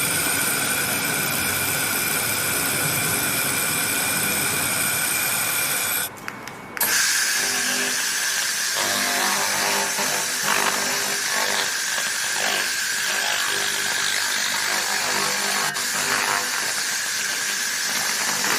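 Handheld fiber laser tool working on metal: a steady hiss with a high whine, breaking off briefly about six seconds in, then resuming with crackling.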